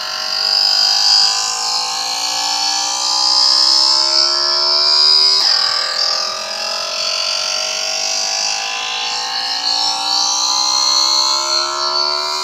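Electronic dance music build-up: a synthesizer tone rising slowly in pitch for about five and a half seconds, dropping back and rising again, over a bright high hiss.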